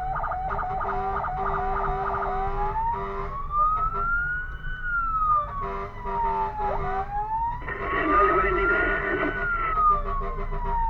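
Fire engine's electronic siren switching about two seconds in from a fast yelp to a slow wail that rises and falls twice. A louder, rough noise joins it for about two seconds during the second rise.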